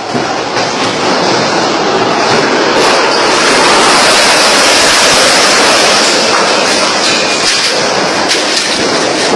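Violent storm wind with heavy rain: a loud, steady rushing noise that swells a few seconds in and eases slightly near the end, heard as a train-like rumble.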